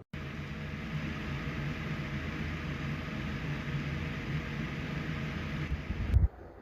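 Vornado Velocity 3 space heater running on high heat with its fan at a high setting: a steady rush of blown air over a low motor hum. A loud low thump comes near the end, and then the sound drops away.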